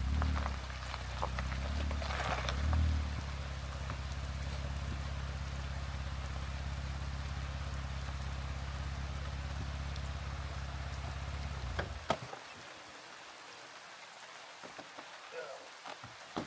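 2018 Jeep Wrangler JL Rubicon's engine running with a steady low hum while rain patters on the vehicle. The engine is switched off suddenly about twelve seconds in, leaving only the rain and a few light knocks.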